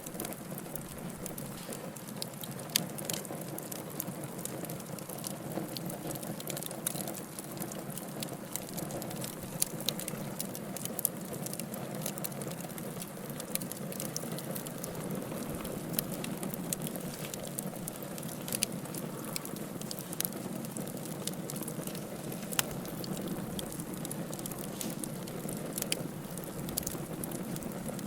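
Wood fire burning in a fireplace: a steady low rush of flames with frequent sharp crackles and pops at irregular intervals.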